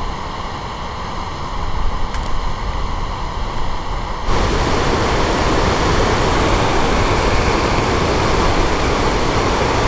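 Mountain stream rushing in small cascades over granite slabs. At a cut about four seconds in, it gives way to a louder, hissier waterfall pouring down a rocky face.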